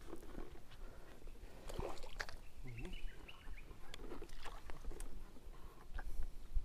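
Scattered small clicks and knocks from handling a baitcasting rod and reel in a small boat, with a short chirping bird call about three seconds in.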